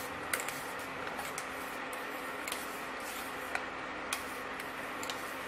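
Pot of ginger water with jaggery heating on a gas stove: a steady hiss with a few light, sharp clicks scattered through it.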